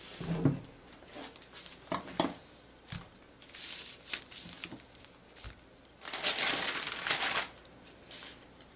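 Paper pattern pieces rustling against linen fabric on a cutting table as they are handled, with a few short knocks from round pattern weights being set down on them. The longest rustle comes about six seconds in.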